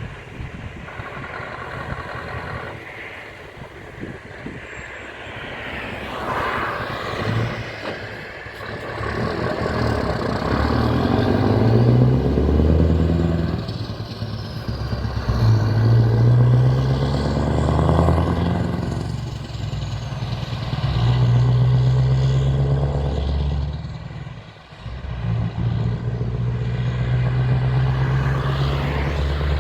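Heavy truck engine pulling away and accelerating through the gears. The deep engine note climbs and then breaks off at each of about three gear changes.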